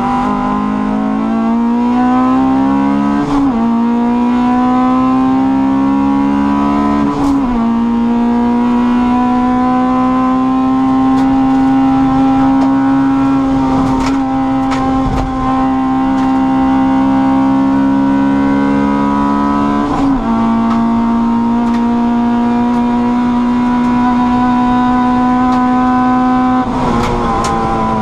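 Honda Cup race car's engine heard from inside the cabin at full throttle. The revs climb and drop sharply at upshifts about three and seven seconds in. It then holds high revs down the straight, shifts again about twenty seconds in, and the throttle comes off near the end.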